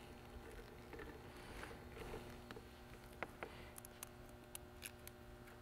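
Faint handling of a nylon zip tie around a bundled power cable: light rustling, then a short run of small clicks about four seconds in as the tie's teeth are drawn through its head.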